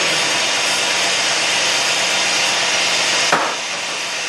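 Steady loud hiss of air as the truck charges the trailer's air brake lines, with a single sharp knock a little over three seconds in.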